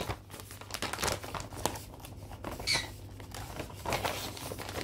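Crinkling and rustling as a cross-stitch project is handled, made of many small irregular rustles and clicks, with a brief high squeak about halfway through.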